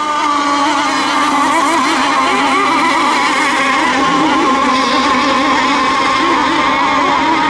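Several radio-controlled racing boats running hard together, their overlapping engine whines wavering up and down in pitch as they race.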